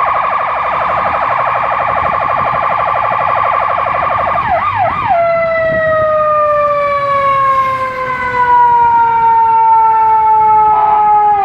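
Fire engine's electronic siren on a fast yelp, then, about four and a half seconds in, two quick sweeps and a switch to a long wail tone that slowly falls in pitch.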